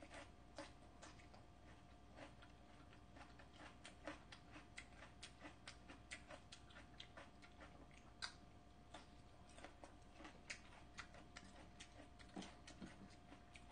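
Faint crisp crunching of raw bell pepper (paprika) strips being chewed: small sharp crunches, about two a second, close to the microphone.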